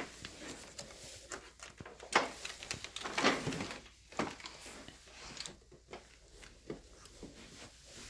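Handling noise from the plastic parts of a Kenmore Progressive upright vacuum: an irregular run of clicks, knocks and light clatters, loudest about two to three and a half seconds in, with the motor not running.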